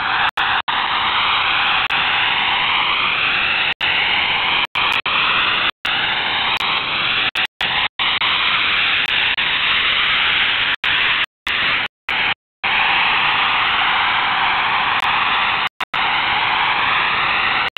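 Shortwave radio receiver putting out a steady hiss-like signal confined to a narrow audio band, with faint rising sweeps running through it and cut by brief silent gaps every few seconds. It is a noise-like transmission on a marker frequency that could be transmitter noise or a STANAG data modem signal.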